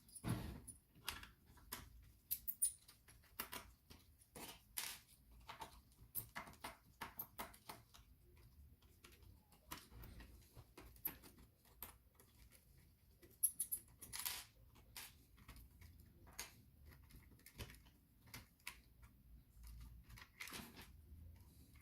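Faint, irregular clicks, taps and light scrapes of small parts and tools being handled at close range, coming several times a second with a few louder knocks, one of them about two-thirds of the way through.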